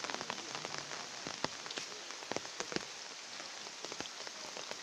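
Rain falling steadily, an even hiss with many sharp, irregular drop ticks.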